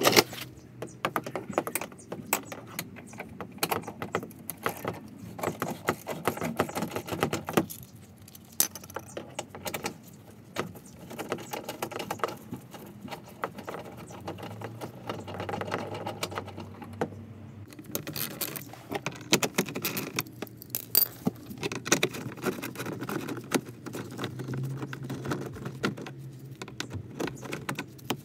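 A ratchet wrench and socket clicking in quick runs with short pauses, mixed with metallic rattling of the tools and handling of the plastic bumper, as the bumper's bolts and clips are undone.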